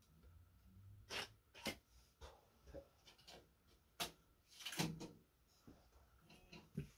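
A string of sharp, irregular clicks and knocks from handling things at a computer desk, loudest around the middle, with a low rustle near the start.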